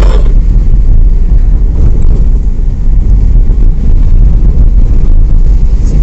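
Car driving along a country road: a loud, steady low rumble of engine and road noise.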